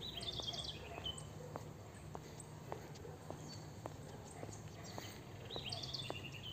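Footsteps on a dirt road at a steady walking pace, a little under two steps a second, with a bird singing a short falling phrase of high notes near the start and again near the end.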